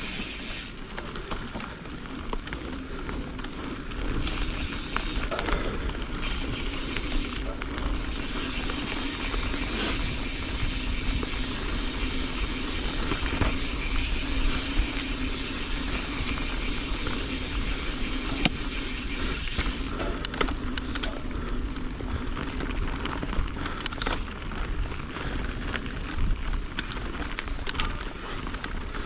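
Canyon Strive enduro mountain bike rolling fast down a dirt and gravel trail: steady tyre noise over the ground with wind rumbling on the camera microphone. Short sharp clicks and rattles from the bike come in over the last third.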